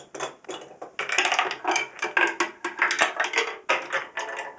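A marble rolling and clattering through a homemade wooden marble run, a quick irregular run of clicks and rattles as it knocks along the wooden track.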